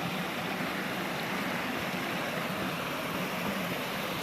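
Creek water running steadily, an even, unbroken rush.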